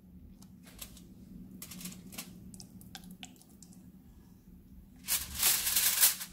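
Aluminium foil crinkling and rustling as a marinated fish is laid onto a foil-lined tray: a few light crackles and clicks at first, then a louder stretch of crinkling about five seconds in.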